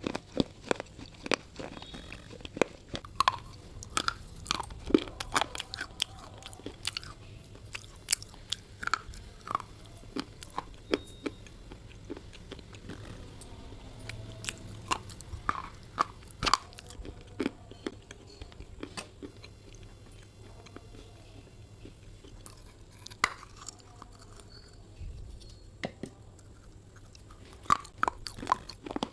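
Close-up biting and chewing of hard, brittle baked clay or slate pencil: irregular sharp crunches, thinning out past the middle and coming thicker again near the end.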